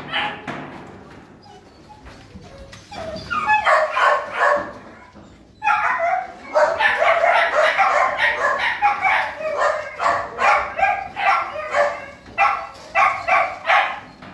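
Dog barking in a shelter kennel: a short run of barks about three seconds in, then steady repeated barking, about two barks a second, from about six seconds in until near the end.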